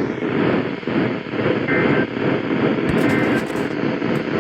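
Weather radio receiver playing a heavy, rumbling static-laden broadcast. Faint two-tone data chirps, the SAME digital alert header, sound three times about a second apart beneath the noise.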